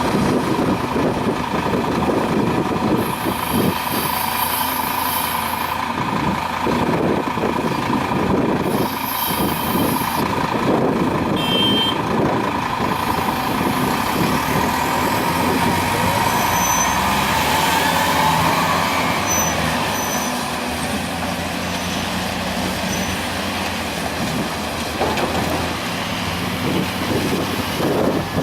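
Caterpillar 336D long-reach excavator's diesel engine and hydraulics running under load, a steady drone with a whine, with short bursts of hiss a few seconds in and again around ten seconds in.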